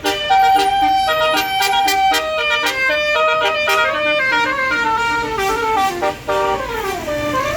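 A bus's basuri telolet horn, a multi-trumpet electric air horn, playing a fast melody of stepped notes, with a downward sliding note near the end.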